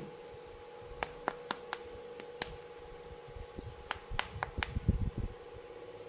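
Sharp clicks and taps of plastic toy pieces being handled, in two quick clusters, then a few soft thumps about five seconds in.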